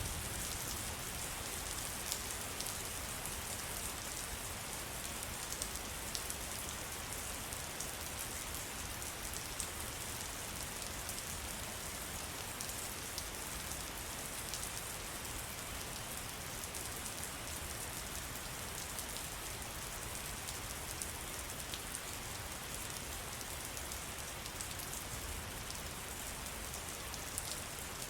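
Steady rain falling in a forest, with a constant hiss and many individual drops ticking on surfaces.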